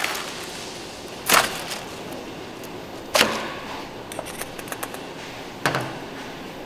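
Three sharp knocks, about two seconds apart, with a quick run of lighter clicks between the second and third, over a steady background hiss.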